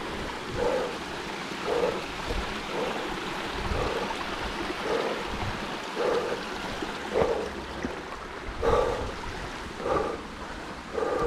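A hiker breathing hard while climbing, a short voiced exhale about once a second, over the steady rush of a small rocky stream.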